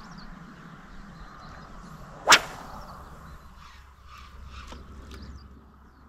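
A spinning rod swished hard through the air once in a cast, a single sharp whoosh about two seconds in.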